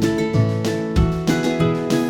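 Instrumental music with plucked strings and a bass line in a steady rhythm, several notes a second.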